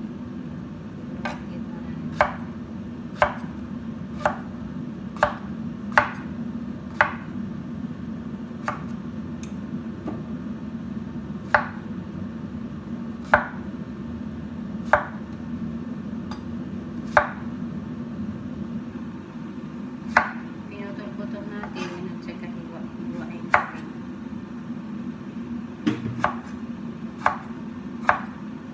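Kitchen knife chopping on a cutting board in unhurried single strokes, about one every second or two, over a steady low hum.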